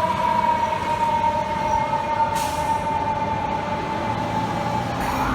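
Fire truck's mechanical siren winding down, its pitch falling slowly and steadily over several seconds. Near the end a siren starts up again, rising quickly in pitch, over steady street traffic noise.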